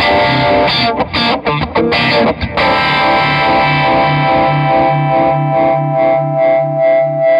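Electric guitar, a Fender Stratocaster, played through an RFO Waterfall Uni-Vibe-style chorus/vibrato pedal and a Barber Direct Drive overdrive. A few short, choppy chord strums come first; after about two and a half seconds one chord is left ringing, throbbing with the vibe's even pulse about two or three times a second.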